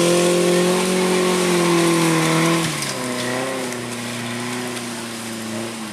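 A 4x4 off-road vehicle's engine held at high revs, then easing off to lower revs and going quieter about two and a half seconds in.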